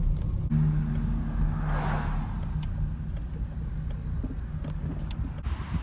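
Peugeot 306 XSi's four-cylinder engine running on the road with a low steady hum and road rumble, and a brief whoosh of noise about two seconds in, like a vehicle passing.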